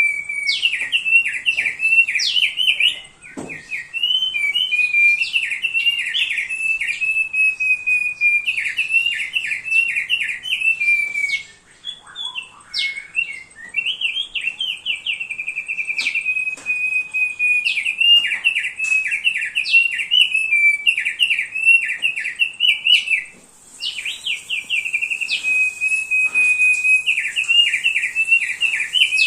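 Thick-billed heleia (opior paruh tebal) singing steadily: long runs of fast repeated notes and chattering trills, broken by short pauses about three, twelve and twenty-three seconds in.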